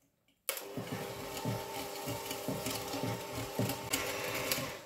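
Electric stick blender with a whisk attachment starting about half a second in and running at a steady speed, whisking sugar into a wet red velvet cupcake batter in a glass bowl; it winds down just before the end.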